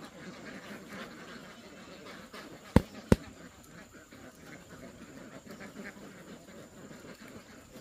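Two sharp knocks about a third of a second apart, against a low background chatter of ducks.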